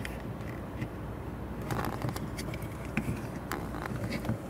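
Small plastic clicks and light scraping as a trunk cargo light's wiring connector is worked loose by hand from its socket behind the trim panel.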